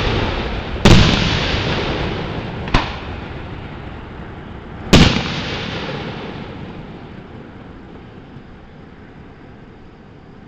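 Aerial fireworks shells bursting: a loud bang about a second in, a smaller one near three seconds and another loud bang around five seconds. Each bang trails a long echoing rumble, and the rumble fades away over the last few seconds.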